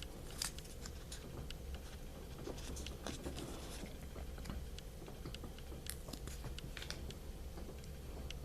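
Handling noises: scattered small clicks and taps, a few every second, over a steady low hum.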